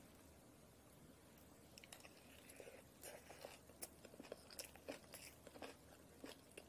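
A metal spoon mixing sticky rice and seasoned spring cabbage in a bowl for bibimbap: faint, irregular clicks, squelches and scrapes of the spoon against the bowl and the wet rice, starting about two seconds in.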